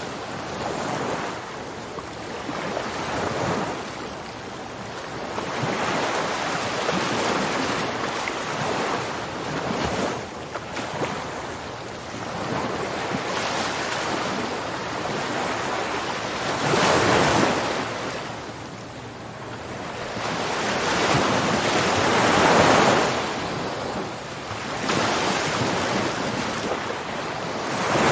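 Ocean waves washing onto a shore, the surf swelling and ebbing every few seconds, with stronger breakers near the middle and end.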